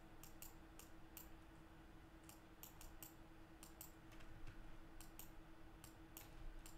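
Faint, irregular clicks of a computer mouse and keyboard, over a faint steady hum.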